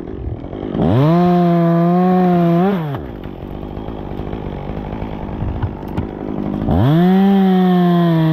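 Chainsaw revved to full throttle twice, each run lasting about two seconds, with the saw idling in between, while limbs are cut. The pitch jumps up briefly at the end of each run before the throttle drops off.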